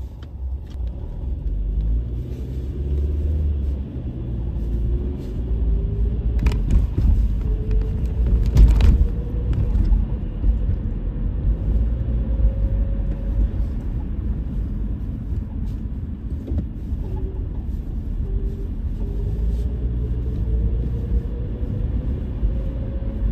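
Car interior noise while driving: a steady low road and engine rumble, with a faint tone that rises slowly in pitch several times as the car pulls away and gathers speed. A couple of brief knocks come about seven and nine seconds in.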